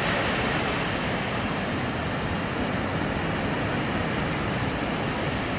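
Steady rushing noise of surf breaking on a beach, even and unbroken throughout.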